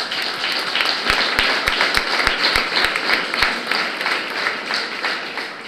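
Audience applauding: a dense patter of many hands clapping that fades out near the end. Through the middle runs a steady beat of louder low thumps about three a second.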